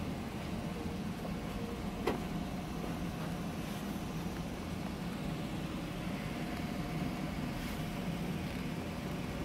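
Steady low background rumble with a faint hum, and one sharp click about two seconds in.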